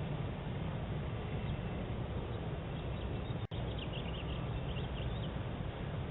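Steady outdoor noise with a low rumble, as picked up by a doorbell camera's microphone; it cuts out for an instant about halfway through, and after that faint bird chirps come in for a couple of seconds.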